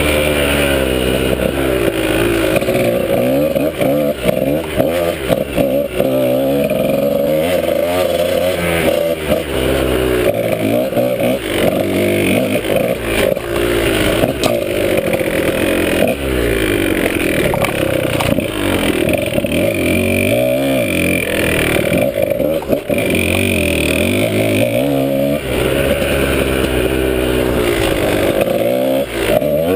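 Dirt bike engine revving up and down as the throttle opens and closes, its pitch rising and falling every few seconds, with occasional knocks and rattles from the bike over rough trail.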